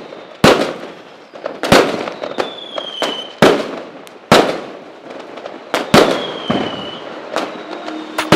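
Fireworks going off: a string of sharp, loud bangs about one to two seconds apart, each dying away, with high whistles that slide slightly down in pitch before some of the bangs.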